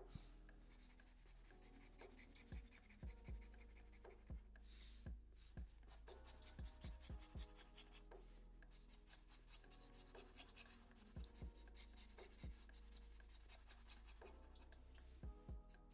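Black felt-tip marker scratching across paper in quick, short strokes, inking in the drawing's dark stripes; faint, with a few brief pauses.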